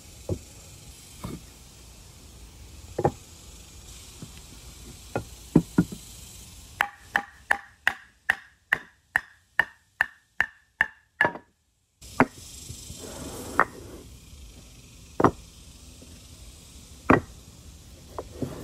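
Sharp wooden knocks and taps as the parts of a wooden timberframe model are knocked apart. About halfway through comes a run of about a dozen evenly spaced taps, roughly two to three a second, each with a brief ring.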